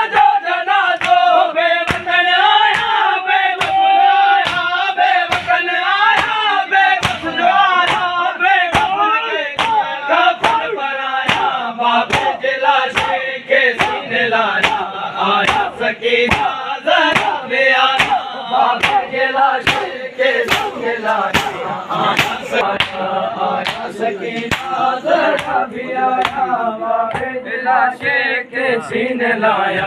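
Men chanting a Sindhi noha, a mourning lament, to a steady beat of open-handed chest-beating (matam) by a crowd of mourners.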